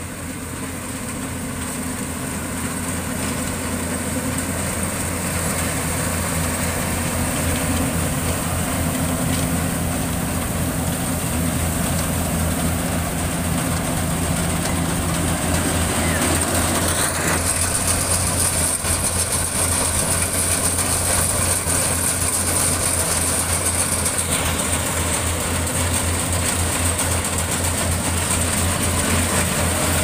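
Yanmar AW70V rice combine harvester running steadily while cutting rice, its diesel engine and threshing machinery making a low pulsing drone. It grows louder over the first several seconds as the machine comes closer, and a high hiss strengthens for a few seconds past the middle.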